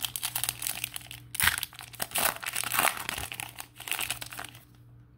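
Foil trading-card pack wrapper crinkling and tearing as it is ripped open by hand, in several loud crackling bursts that die away near the end.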